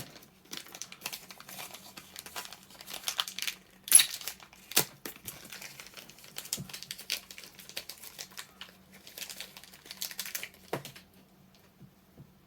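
Crinkly packaging being handled and opened, crackling and rustling in irregular bursts. There is a sharp snap about four seconds in, and the handling stops shortly before the end.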